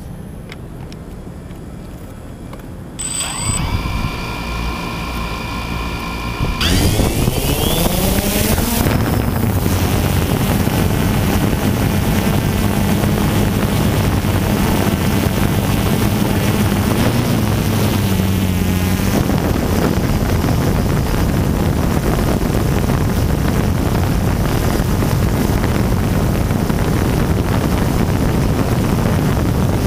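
DJI Phantom 2 quadcopter's four electric motors and propellers, recorded by the camera riding on the drone: after a few seconds of low hum the motors start about three seconds in with a rising whine, climb sharply in pitch and loudness at takeoff, then settle into a steady high buzzing hum in flight, with a brief dip and rise in pitch about two-thirds of the way through.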